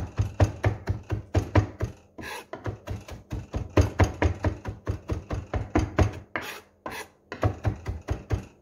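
Chef's knife rapidly chopping lime leaves fine on a wooden cutting board, about four to five chops a second, with a couple of brief pauses.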